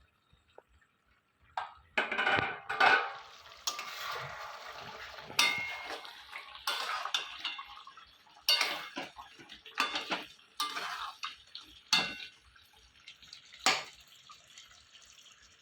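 Lid taken off a pan of simmering curd chicken, then a metal utensil scraping and knocking against the pan about once a second as the meat is turned, over a steady sizzle of the cooking gravy.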